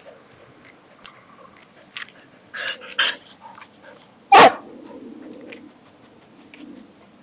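A dog barks once, loudly, about four seconds in, after two softer short yelps a second or so before. Early on there is faint scrabbling of its paws on the bark of a fallen tree trunk.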